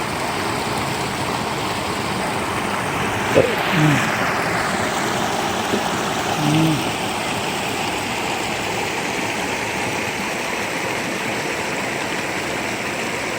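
River water flowing in a steady rush, with two or three short pitched sounds about four and seven seconds in.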